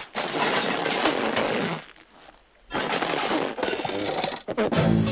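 Cartoon sound effects: two loud bursts of noise, each about two seconds long, with a short break between them. Music comes in near the end.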